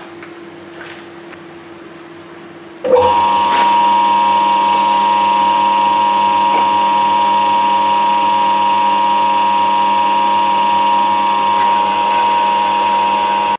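Small Clarke lathe motor starting about three seconds in and then running with a steady whine. A hiss joins near the end as the cutter works the groove in the tube bender die.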